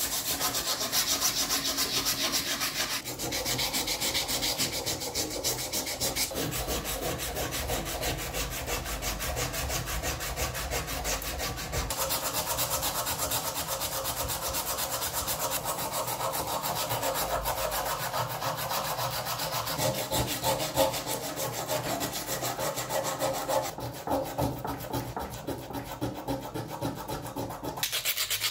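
Fast back-and-forth filing and sanding of a steel pipe wrench part by hand, a continuous rasping scrape made of rapid short strokes. The tone shifts abruptly a few times as the tool or the stroke changes, moving from a file to sandpaper.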